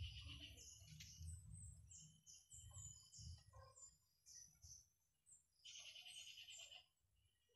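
Faint bird chirps: short high notes scattered throughout, with a buzzy trill about six seconds in, over a faint low rumble.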